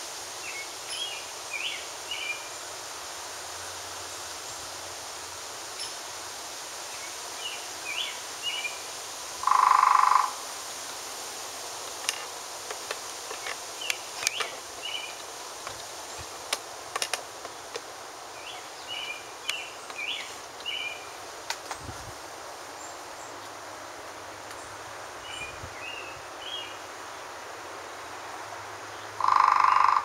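Scattered sharp taps of a woodpecker pecking at a wooden utility pole, mostly in the middle stretch, against repeated short bursts of chirping every few seconds. Two loud short tones stand out, one about ten seconds in and one at the very end.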